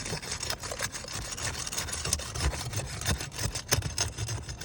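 Irregular crackling, scraping and ticking as the sealant strip of brittle asphalt roof shingles is pried apart, the brittle shingle cracking, over a low rumble.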